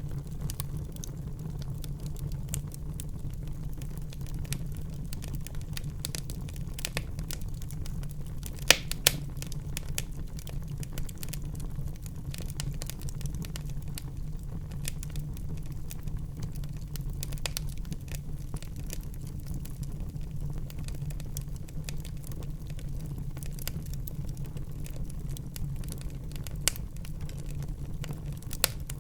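Wood fire burning in a fireplace over a steady low rumble, with frequent small crackles and a few sharper pops, the loudest two close together about nine seconds in.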